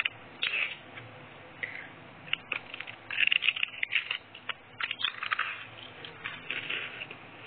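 Close-miked crunching of crisp round crackers being bitten and chewed: clusters of crackly snaps, thickest about halfway through and again near the end.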